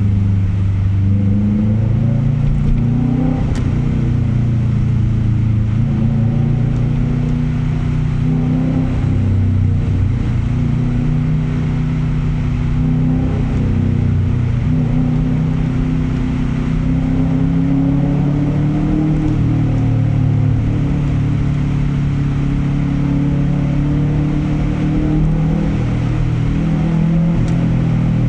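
Subaru flat-four boxer engine running with its characteristic uneven rumble, the sound that comes from its unequal-length exhaust manifold. The engine speed holds fairly steady, rising slightly and easing back in the middle.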